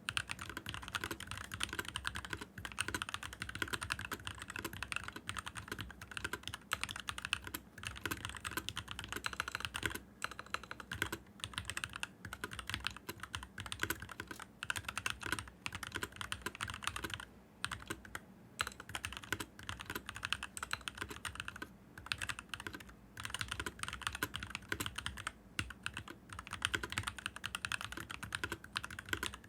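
Stock NovelKeys NK65 mechanical keyboard being typed on quickly and continuously, a dense run of key clicks with a few short pauses.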